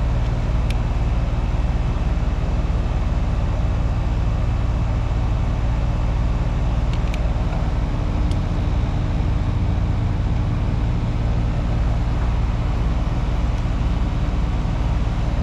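Carrier heat pump outdoor unit running steadily, its compressor and condenser fan humming after a capacitor replacement. A few light clicks sound about a second in and again around seven and eight seconds in.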